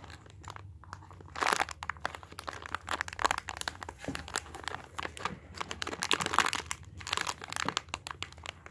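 Clear plastic packaging bag crinkling as hands handle the squishy toy sealed inside it, in irregular bursts of crackles.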